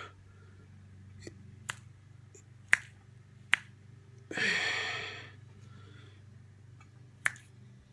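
Finger snaps: three sharp snaps about a second apart, then another near the end, each one marking a hiccup. Between them comes a breathy exhale of about a second that fades out.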